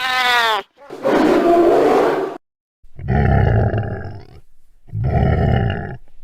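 Bear roar sound effects: a short call falling in pitch at the start, then three loud, rough roars with short silences between them.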